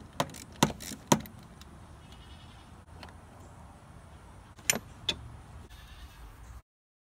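A few sharp plastic and metal clicks and knocks from hands unhooking the seatbelt at the side of a pickup truck's seat: a quick run of clicks at the start and two more a little past the middle. The sound cuts out suddenly near the end.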